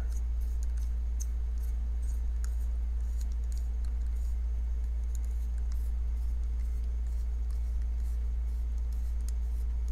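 Faint small metallic clicks and ticks of a precision screwdriver bit working a small Torx screw into the back spacer of a folding knife's handle, scattered irregularly, over a steady low hum.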